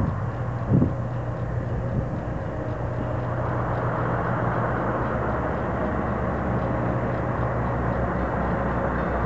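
Scania 144L 530's V8 diesel running as the truck rolls slowly closer, growing gradually louder from about three seconds in, over the steady drone of its trailer's refrigeration unit.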